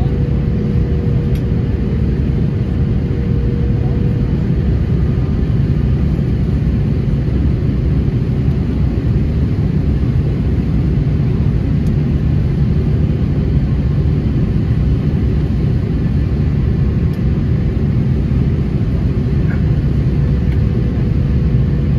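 Airbus A330-200 cabin noise on the descent to landing, heard from a window seat beside the wing engine: a loud, steady deep rumble of engine and airflow. A faint steady hum fades out about four seconds in and returns near the end.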